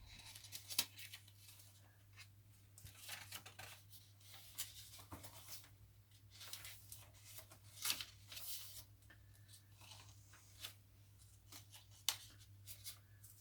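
Paper pages and tags of a handmade junk journal being turned and handled by hand: faint, irregular rustling and crinkling with a few sharper paper snaps, over a steady low hum.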